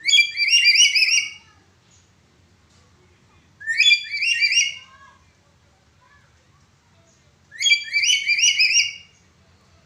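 Black-capped lory calling. It gives three loud, whistled phrases, each a quick run of about four or five notes, with about two to three seconds between them.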